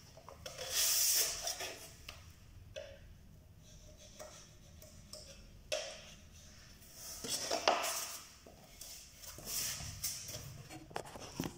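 Paper masking tape peeled off the roll with a hiss about a second in, then several short scrapes of a putty knife drawn along the tape on top of a skirting board, pressing its edge down to seal it against paint seeping under.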